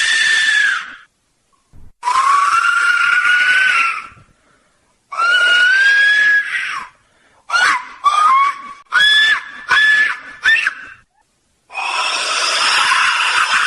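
Ancient Mexican clay resonator whistle blown in a series of loud blasts, each a harsh hiss with a shrill, slightly wavering tone on top. A blast ends just after the start, two long blasts of about two seconds follow, then a run of about four short blasts, and a longer, noisier blast comes near the end.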